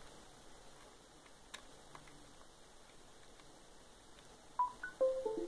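A faint click about a second and a half in, then near the end a short electronic chime: a quick run of several beeping tones jumping up and down in pitch. It marks the Samsung Galaxy S5 being connected to a computer by USB cable.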